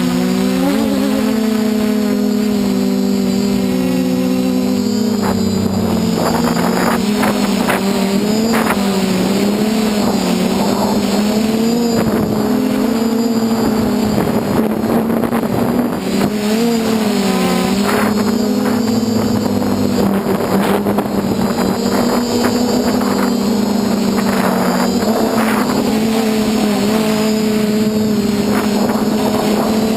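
DJI F450 quadcopter's four brushless motors and 8-inch propellers whirring in flight, heard from a camera mounted on the frame: a steady hum whose pitch wavers up and down as the throttle changes, with short gusts of wind noise now and then.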